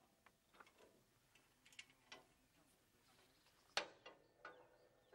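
Near silence with a few faint clicks as the swing-out condenser panel on the excavator's cooler package is handled, and one sharper click a little before the end.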